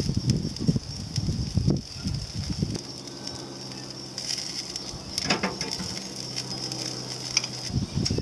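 Meat and vegetables sizzling on a barbecue grill, with a steady hiss throughout and a low rumbling noise at the start and end. A steady low hum comes in for a few seconds in the middle, and a few light clinks of a spoon on the metal mesh grill basket.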